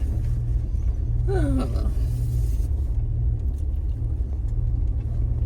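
Steady low road rumble of a vehicle driving along a dirt trail, heard from inside the cab.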